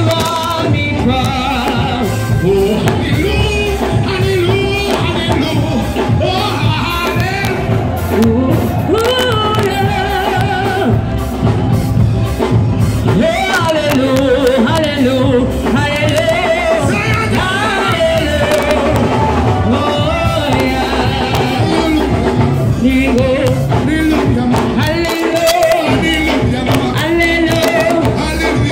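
A church congregation singing loudly, with instrumental accompaniment.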